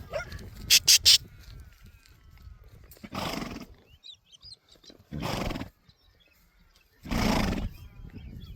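Three sharp, loud cracks in quick succession about a second in. Then an animal calls hoarsely three times, each about half a second long and about two seconds apart, over a low background rumble.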